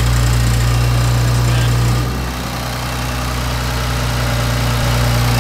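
2018 Infiniti Q60's twin-turbo V6 idling steadily with a low hum; it gets a little quieter about two seconds in.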